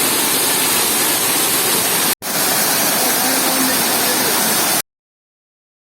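Steady rush of falling water from a waterfall. It breaks off for a split second about two seconds in, then cuts off abruptly into dead silence near the end.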